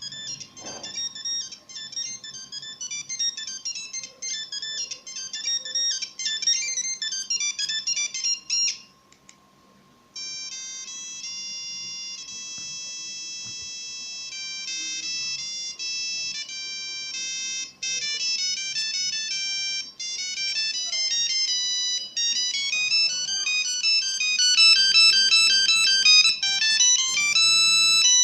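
Nokia 1100 monophonic ringtones. First comes a fast tune of short high beeping notes for about nine seconds; after a second's pause, a different tune starts with longer held notes and gets quicker and busier toward the end.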